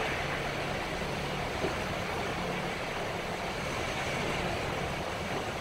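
Steady engine and road noise of a city bus, heard inside its cabin, with a low hum running under it.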